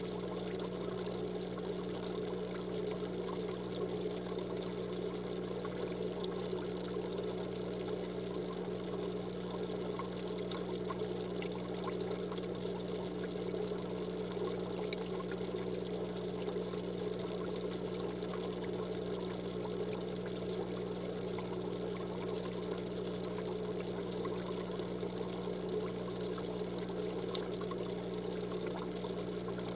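Aquarium water trickling steadily over a constant low hum.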